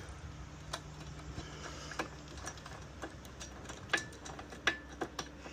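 Irregular sharp metallic clicks and clinks of hand tools and bolts against metal as bolts are hand-tightened into the cross member, a few with a short ring; they come closer together in the second half.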